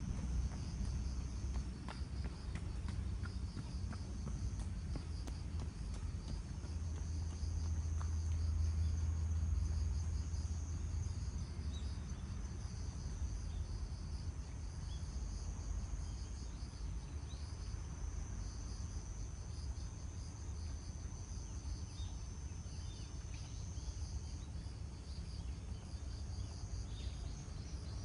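Insects chirring steadily in the grass, a high continuous trill with a faster pulsing chirp just below it, over a low rumble that swells about a third of the way in.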